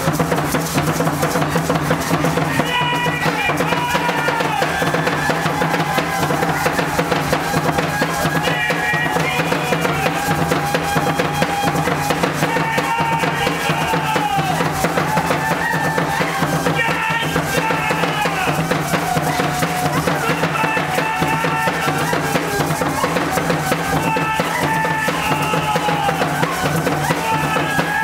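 Steady rapid drumming for Mexica ceremonial dance, with the shake of the dancer's seed-pod ankle rattles. A high wavering melody weaves above it from about three seconds in.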